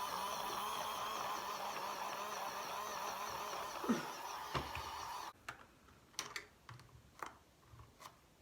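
Small motor of a mini makeup brush washing machine running with a steady, wavering whir, stopping suddenly about five seconds in. A few light clicks and knocks follow.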